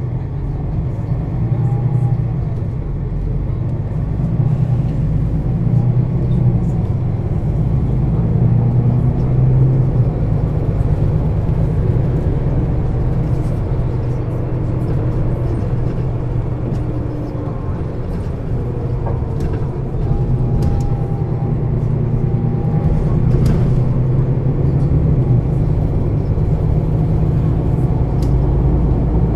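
Setra S 415 NF city bus's diesel engine and ZF gearbox running steadily, heard from inside the passenger cabin, with a deep low drone and faint shifting whine above it.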